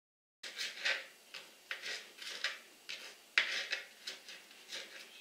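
Kitchen knife dicing cherry tomatoes on a plastic cutting board: a run of irregular knife taps, about two a second, starting about half a second in.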